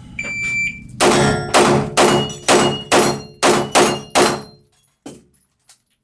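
Electronic shot timer beeps its start signal, then a pistol fires eight quick shots about half a second apart at steel plates, each shot echoing in a small indoor range.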